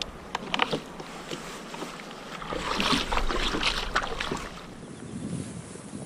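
Wet handling of a freshly caught bigfin reef squid on a plastic kayak deck: scattered clicks and knocks, with a rush of sloshing water about halfway through.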